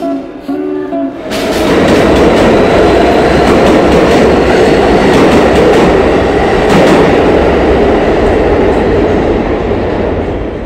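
Subway train running through a station: a loud, dense rumble with rail clatter that comes in about a second in and holds steady. Just before it, the street band's last drum and guitar notes.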